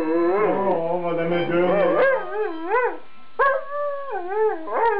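Afghan Hound howling along to a harmonica, its long howls wavering up and down in pitch over steady harmonica notes; one howl breaks off about three seconds in and a new one begins, with another starting near the end.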